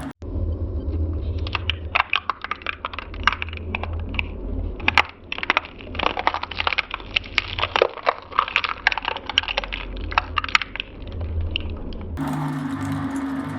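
Shredder running with a steady low hum while its blades crack and snap through a plastic doll, giving dense, irregular sharp cracks. About twelve seconds in, the cracking gives way to a steadier running hum.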